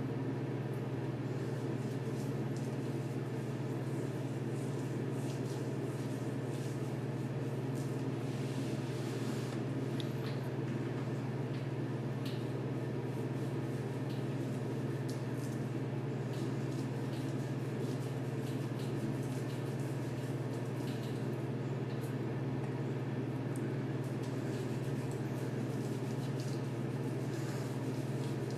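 A steady low hum that holds level throughout, with faint scattered small clicks over it.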